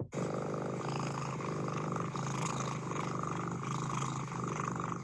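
Domestic cat purring steadily: a slow, rhythmic non-solicitation purr, the contented kind a cat gives while resting or being stroked. It cuts off abruptly near the end.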